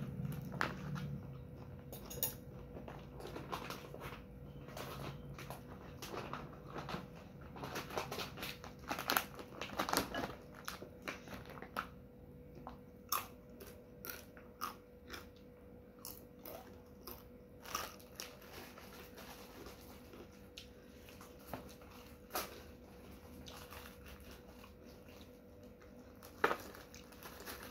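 Close-miked crunching and chewing of fried cassava chips (keripik singkong): irregular sharp crunches, densest around ten seconds in and sparser later. A faint steady hum runs underneath.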